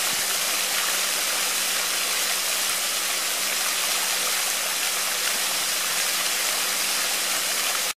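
Water sprayed up by two floating pond aerator fountains, 750 W and 250 W, falling back onto the pond surface in a steady splashing rush, with a faint steady low hum underneath.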